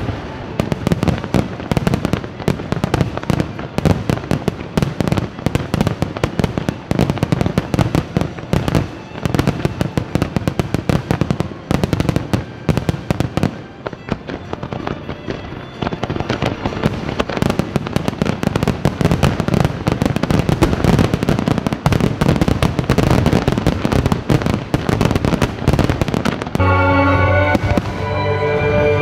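Rapid barrage of aerial fireworks shells bursting and crackling, one bang hard on another, easing briefly about halfway through. Music with clear notes comes in near the end over the bursts.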